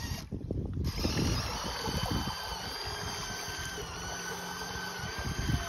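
Twin Lego buggy motors driving the Lego Technic boat, giving a steady high-pitched electric whine that cuts out briefly just after the start and then runs on evenly.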